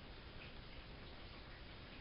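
Samsung WF71284 front-loading washing machine running quietly: a faint steady noise with a few light, scattered ticks.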